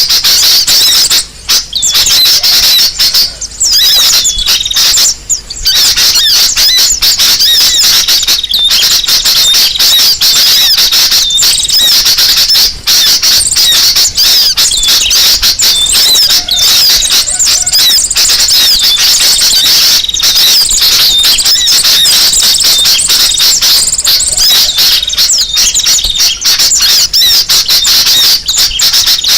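Dense, continuous high-pitched chirping and chattering of many small birds calling at once, with only brief dips. It is a bird-lure recording of a noisy flock, played to draw other birds in.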